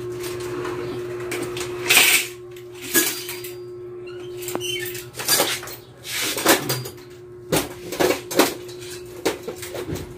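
Irregular sharp knocks and clinks of hard objects being handled, about eight in all, over a steady electrical hum.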